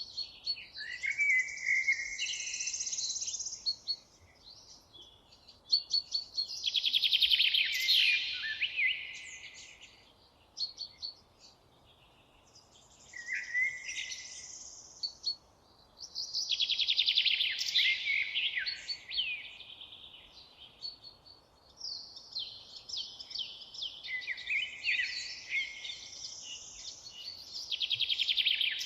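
Songbirds singing in the forest: about five phrases of rapid, high twittering and trilled notes, each a few seconds long with short pauses between them.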